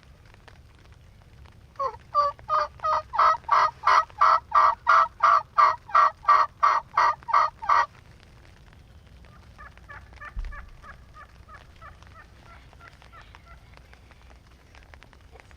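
Wild hen turkey yelping: a long, loud run of about twenty evenly spaced yelps, roughly three a second, lasting about six seconds. A couple of seconds later comes a much quieter, quicker run of yelps.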